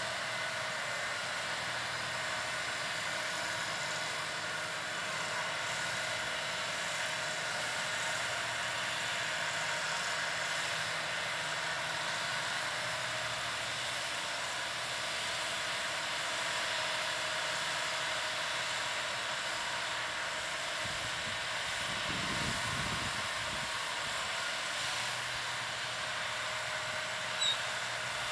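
New Holland T7.290 tractor, a six-cylinder diesel, running steadily under load while pulling a Horsch Serto 12 SC seed drill. The engine note is mixed with a steady hiss. A brief click comes near the end.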